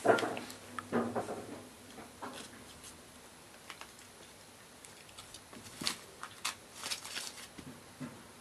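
Soft scuffing, rustling and scratching of a kitten rolling and wrestling a toy on a shaggy rug, its paws and claws catching the pile. A flurry of them comes at the start and another about six seconds in.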